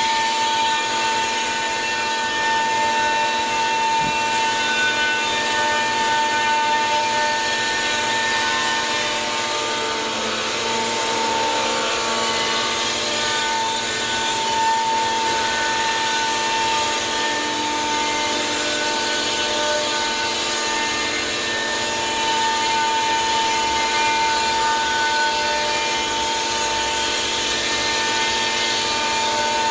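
Five-axis CNC router spindle running at a steady high pitch while its bit cuts pressed plywood, with the rasp of the cutter in the wood under the whine.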